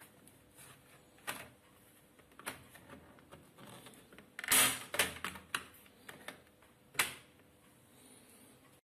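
Light clicks and taps of hands and a small tool working on a laptop's plastic case, with a louder cluster of clicks about four and a half seconds in and one sharp click near seven seconds. The sound cuts off abruptly just before the end.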